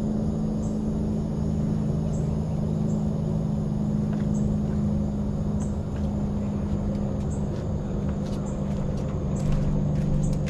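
A steady low mechanical hum holding two tones, like a motor running at constant speed, over constant low rumbling noise. Faint short high chirps recur about once a second.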